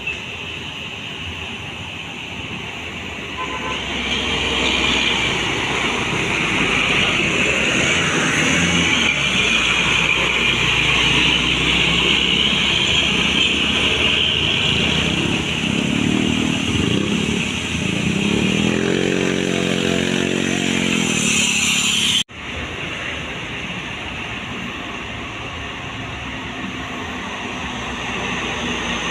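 Road traffic: engines of passing vehicles, louder from a few seconds in, with an engine's pitch rising and falling near the loudest part. The sound cuts off abruptly about two-thirds through, at an edit.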